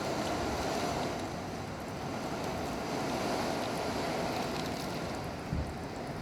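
Hurricane wind and rain: a steady rushing noise, with a brief low thump near the end.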